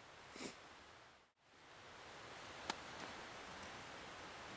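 Quiet outdoor ambience: a faint steady hiss, with a brief rustle about half a second in and a single sharp tick past the middle. The sound drops out for a moment about a second in.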